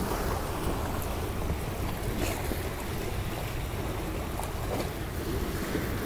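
Small waves washing onto the shore, with wind buffeting the microphone as a steady low rumble.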